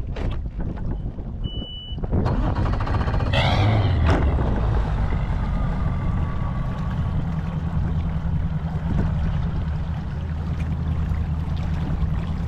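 Bass boat's outboard motor running steadily with a low, even hum, coming up louder about two seconds in after a short high beep.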